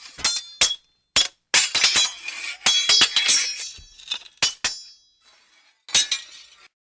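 Swords clashing: about a dozen sharp metal-on-metal strikes, each leaving a bright ringing tone. They come fast for the first few seconds, with one last clash near the end.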